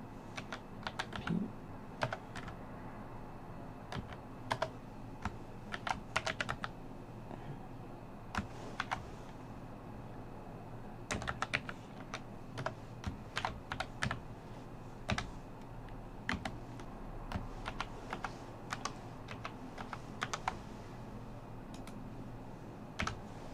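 Computer keyboard being typed on: irregular clicking keystrokes in short clusters, with pauses of a second to a few seconds between them.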